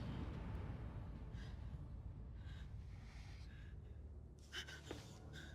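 A person's heavy breathing, several faint breaths over a low steady rumble, with a couple of short sharp knocks about four and a half seconds in.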